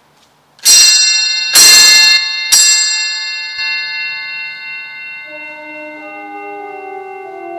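Church bells: three loud bell strikes about a second apart, each ringing on and fading slowly. About five seconds in, lower-pitched bells begin ringing and keep sounding.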